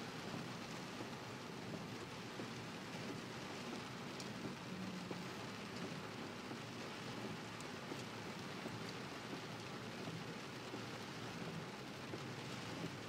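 Steady rain pattering on a car's windscreen and body, heard from inside the cabin, with a few sharper drop ticks.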